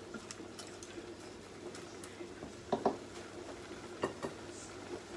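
Pans of aubergine sauce and spaghetti simmering on the hob, with faint steady bubbling and small ticks, and two brief louder clinks about three and four seconds in.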